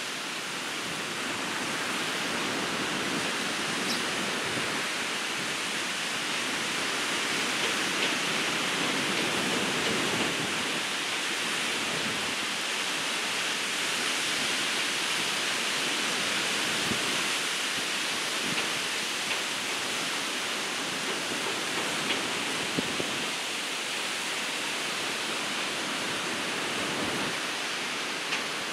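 Ocean surf breaking on a beach: a steady rushing wash of waves with no breaks.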